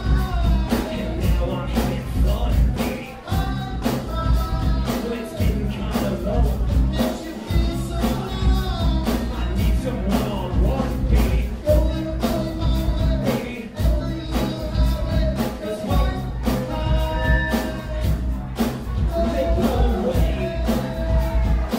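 Live rock band playing: drum kit, electric guitars and bass guitar, with a singer on a microphone over the top.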